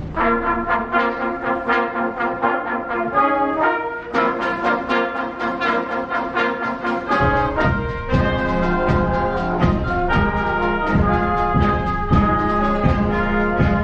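A children's school band playing an overture, with brass to the fore. About halfway through, low bass notes and regular percussive strokes come in under the melody.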